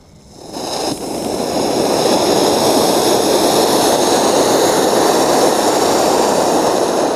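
Penta Colour Fountain ground fountain firework spraying sparks: a loud, steady hiss that starts about half a second in, builds over the next second or so and then holds.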